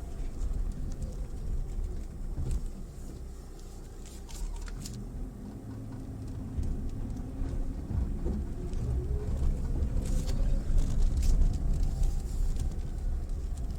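Mitsubishi Pajero Mini driving slowly over a rough forest track. The engine runs over a low rumble of tyres on gravel, and its pitch rises from about halfway through. Scattered sharp clicks and knocks come from stones and the body jolting.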